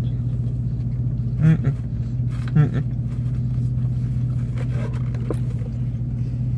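Steady low hum of a vehicle engine idling, heard from inside the cab. A man makes two short murmured vocal sounds about a second apart, around one and a half and two and a half seconds in. Faint clicks of a cardboard food box being handled come near the end.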